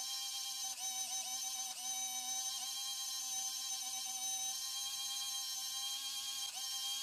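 Small electric motor of an RC truck's lift axle mechanism whining steadily as it drives along its threaded shaft. The pitch sags briefly several times, about a second in and again near the end.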